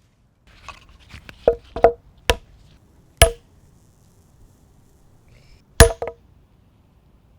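Hammer driving a nail into a power bank: a few light taps, then six sharp, briefly ringing blows in uneven strokes.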